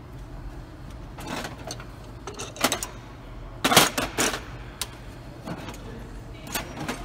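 Scattered short metallic clinks and scrapes, about half a dozen, loudest a little before the middle, as a Ford Crown Victoria differential cover is handled and turned over, against a steady low hum.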